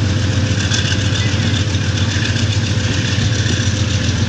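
Diesel-electric locomotive engine of an AGE-30 class locomotive running with a steady low drone, heard close up from alongside the locomotive as the train rolls slowly.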